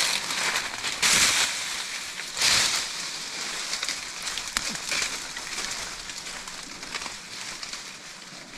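Leafy tree branches rustling and swishing as a person moves and pushes through them, with scattered small clicks of twigs. Two louder swishes come about one and two and a half seconds in.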